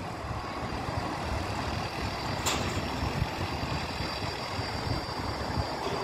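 Steady low rumble of construction-site machinery engines, with wind buffeting the microphone and one short sharp click about two and a half seconds in.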